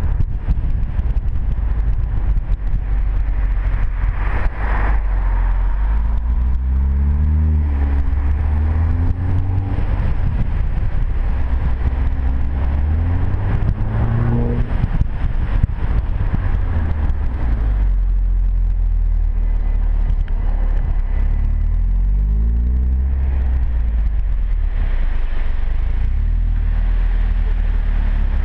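Audi TT-S turbocharged four-cylinder engine and exhaust under way, with road and wind noise. The revs climb twice as the car accelerates, and the second climb drops off sharply at a gear change about fifteen seconds in; after that the note runs steadier and lower.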